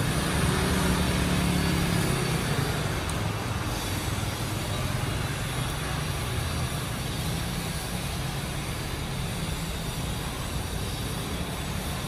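Traffic on a rain-wet street: a motor scooter and cars drive past with engine hum and tyre noise on the wet road, a little louder in the first few seconds.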